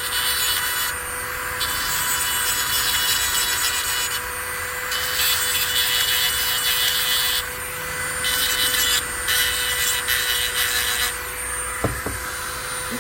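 Two-setting Dremel rotary tool running with a steady whine, its sharpening stone pressed against hedge trimmer blade teeth in about five passes of harsh grinding that come and go over the motor tone.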